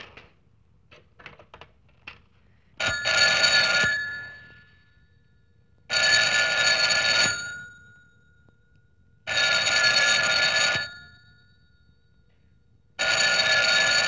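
Telephone bell ringing four times, each ring about a second and a half long with about two seconds of silence between them, after a few faint clicks in the first two seconds.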